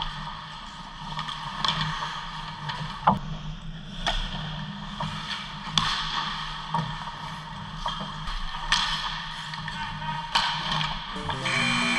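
Live ice hockey play close to the goal: skate blades scraping and carving on the ice, broken by sharp cracks of sticks hitting the puck, the loudest about three seconds in. Background music with guitar comes in near the end.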